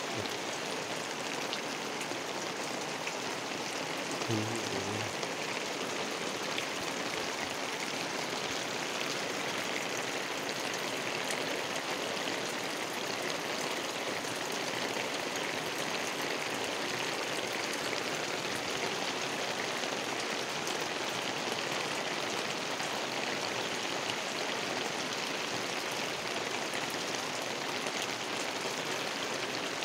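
Heavy rain pouring steadily, a dense even hiss of rain on the thatched roof and the wet ground around it.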